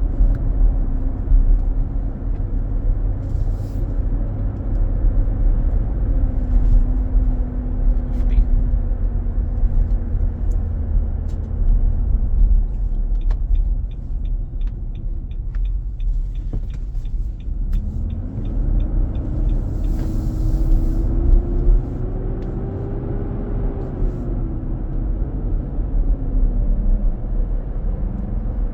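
Inside the cabin of a 2023 Nissan Armada at about 45 mph, a loud rumbling drone from the engine's cooling-fan clutch running engaged, over road noise. Its tone sinks slowly in the first half, and after about 18 seconds it rises and falls back again. A short run of quick even ticks comes midway.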